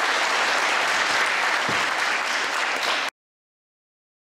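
Audience applauding steadily, then cutting off abruptly about three seconds in.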